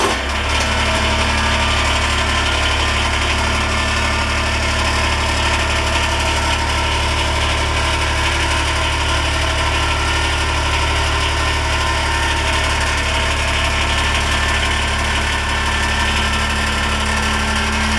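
Kubota BX23S compact tractor's three-cylinder diesel engine running at a steady speed, with no revving.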